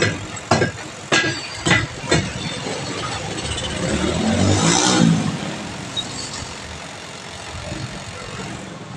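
Five sharp hammer blows in about two seconds on a steel-rimmed car tyre at the rim, breaking the tyre bead loose for a puncture repair. About four to five seconds in, a louder swell of noise rises and fades.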